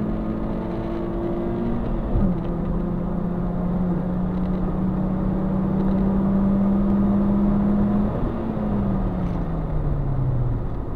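Compact car's engine heard from inside the cabin, running at high revs at a steady pitch with a brief dip about two seconds in, then the revs falling steadily over the last three seconds as the car slows, over road and tyre noise.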